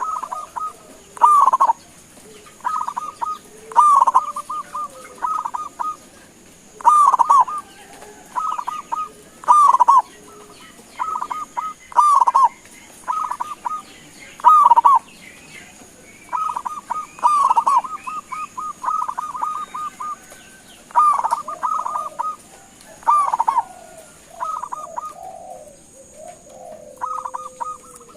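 Zebra dove cooing: short phrases of quick staccato notes at a steady middle pitch, each often ending in a longer note, repeated every one to three seconds, with faint high chirps behind.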